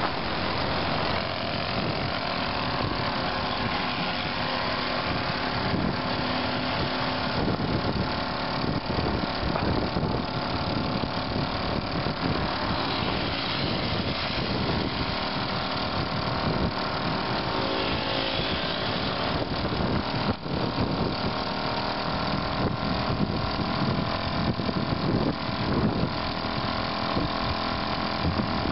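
Solex mopeds' small two-stroke single-cylinder engines puttering steadily under way.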